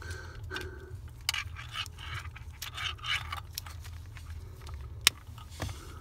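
Plastic wiring-harness connectors and wires being handled and pushed together under a truck's dashboard: scattered light clicks and rustling, with one sharp click about five seconds in as a connector snaps home, over a low steady hum.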